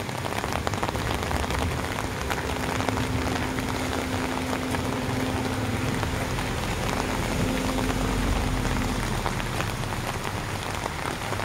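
Steady rain falling on an umbrella held over the phone, with many single drops ticking close by.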